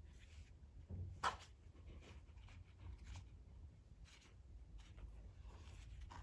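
Faint rustling and light clicks of gloved hands tying a knot in a new nylon starter rope against a plastic recoil starter housing, with one sharper click about a second in.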